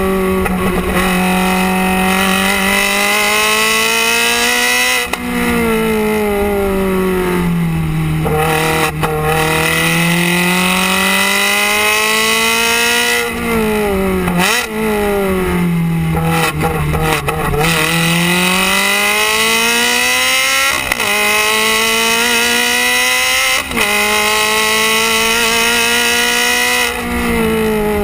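Ferrari 360 Challenge Stradale's V8 exhaust, heard close at the tailpipes while lapping a track. The pitch climbs steadily under acceleration, then breaks and falls off as the car slows for corners, about five times over.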